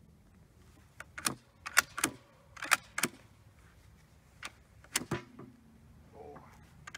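Sharp metallic clicks and clacks of the MLE 1866 Chassepot needle-fire rifle's bolt action being worked during reloading. About six come in a quick cluster between one and three seconds in, and two more come close together about five seconds in.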